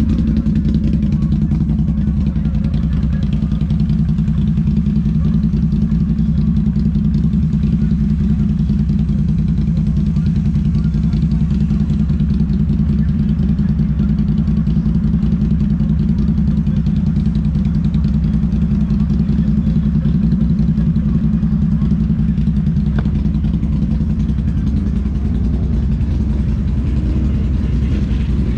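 An ATV engine running steadily at an even speed, with little change in revs.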